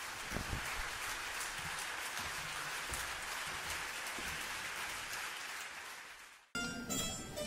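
Audience applause, a dense even clapping that swells in and tapers off. Near the end it cuts off abruptly as plucked-string ensemble music begins.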